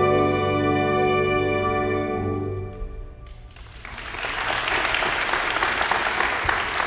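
Symphonic concert band holding a final sustained chord that dies away about three seconds in, then audience applause that swells and continues.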